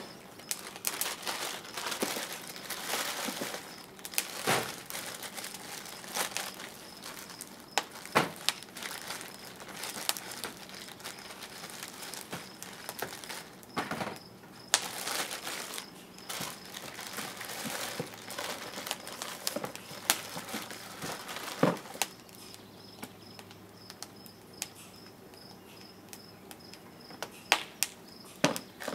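Firewood burning in the firebox of a wood-fired pottery kiln, crackling with irregular sharp pops over a low hiss.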